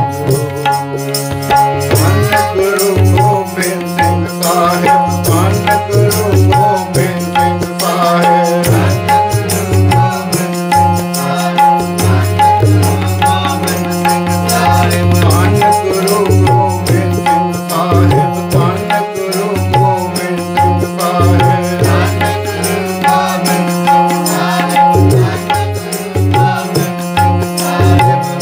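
Sikh kirtan: a harmonium plays steady held chords under a tabla rhythm, while a man sings the devotional hymn in a wavering, melismatic line.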